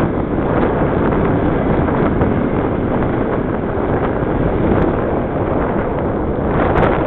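Wind rushing over the microphone of a camera on a moving bicycle: a steady, loud noise.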